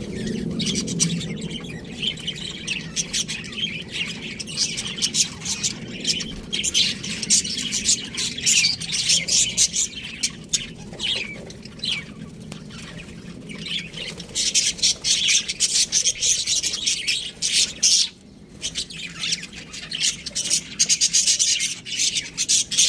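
Budgerigars (pet parakeets) chirping and chattering in a rapid, busy stream of short high calls, with a brief lull about eighteen seconds in.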